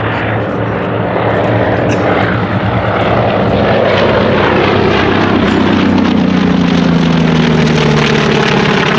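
Piston-engined warbird making a low flypast, its propeller and engine loud and steady, then the engine note dropping in pitch as it passes and moves away.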